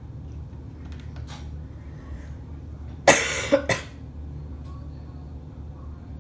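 A person coughs twice in quick succession about three seconds in, the first cough longer and loud, over a steady low hum.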